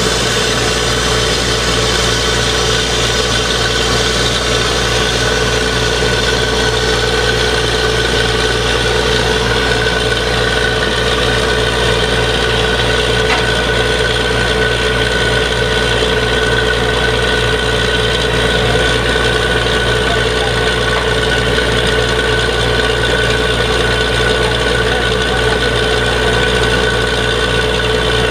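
Borewell drilling rig running steadily: a continuous engine drone with a steady whine over it, unchanging throughout.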